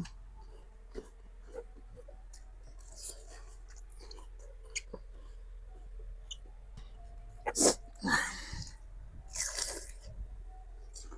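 Close-up chewing and crunching of fresh rujak fruit such as young mango, with small wet clicks throughout. A sharp, louder crunch comes about two-thirds of the way in, followed by two short noisy bursts.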